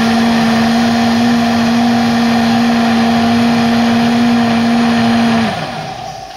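Electric mixer-grinder (blender) motor running at full speed, puréeing cooked lentils in its lidded jar with a steady whine. About five and a half seconds in it is switched off and winds down, its pitch falling.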